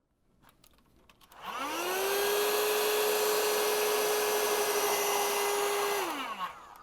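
Electric heat gun starting about a second and a half in, its fan whine rising quickly to a steady pitch over a rush of air, then switched off near the end and winding down. It is shrinking a solder sleeve onto shielded cable until its solder melts.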